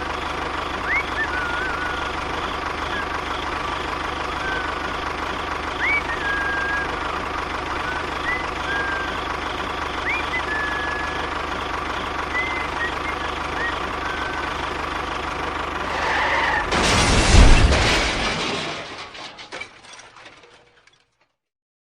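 A small engine running steadily, with short bird chirps over it. About 17 s in, a loud rush of noise rises and then dies away to silence.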